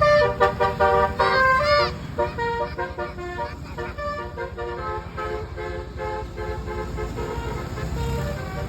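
Bus telolet horn, a multi-tone musical air horn, playing a quick run of notes that change several times a second, loudest in the first two seconds and carrying on more faintly after, over a low engine rumble.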